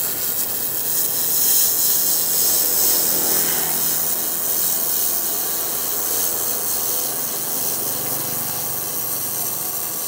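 1 kW handheld laser welder running a freehand seam on 1.5 mm stainless steel: a steady hiss of shielding gas and weld with a faint low hum underneath.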